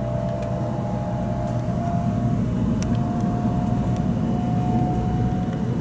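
Cabin noise inside a 700 series Shinkansen car on the move: a steady low rumble with a thin whine that rises slightly in pitch partway through.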